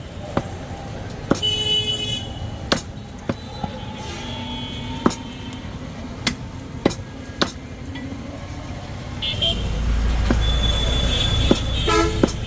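Irregular sharp clicks and knocks over street traffic noise. Short vehicle horn toots sound about a second and a half in and again near the end, and a passing vehicle's low rumble swells in the last few seconds.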